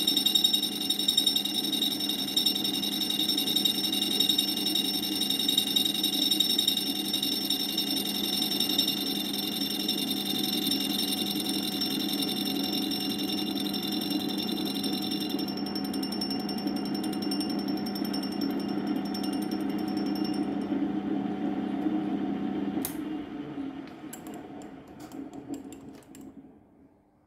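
Homemade lathe tool-and-cutter grinder running its cup grinding wheel with a steady whine and a rough lower hum. About 23 seconds in there is a click, and the machine winds down to quiet over the next few seconds.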